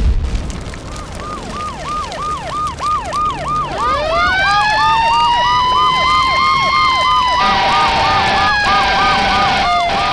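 An explosion blast, then several emergency-vehicle sirens: a fast yelp siren swooping up and down about three times a second, joined about four seconds in by a wail siren rising slowly in pitch.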